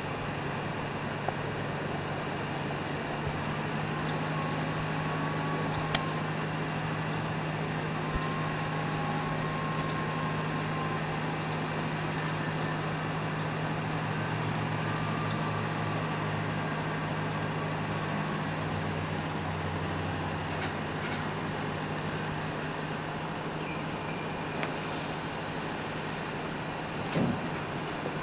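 Heavy diesel engine running steadily with a constant low hum, under a broad steady noise and a few faint clicks.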